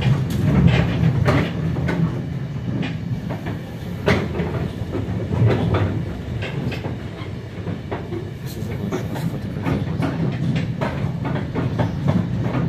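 Running noise heard from inside an RA2 railbus passenger car on the move. The wheels keep up a steady low rumble on the track, with irregular clattering knocks over the rail joints.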